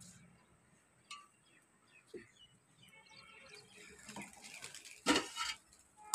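A steel plate and a metal pot lid clatter and clink against each other, loudest about five seconds in, with faint bird chirps earlier.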